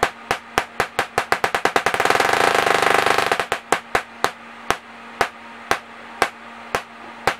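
Tesla coil arcs cracking in sharp pulses timed by a MicroBrute synthesizer's modulator set to a low rate and long pulse width. The cracks come about three a second and speed up until they merge into a loud buzz about two seconds in. They break apart again after a second and a half and slow to about two a second, over a faint steady hum.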